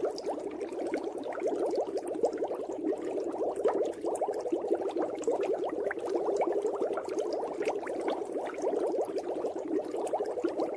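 Water bubbling continuously: a dense, steady stream of many small bubbles popping in quick succession.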